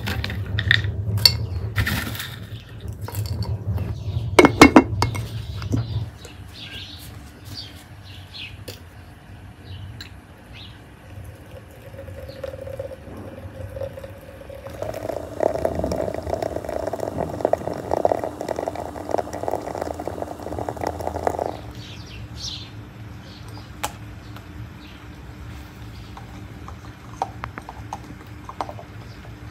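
Clinks of glass and crockery with dry rustling as dried herbs are handled, the loudest a sharp clink about four seconds in. Later, about six seconds of water running from a samovar tap into a teapot, which stops suddenly.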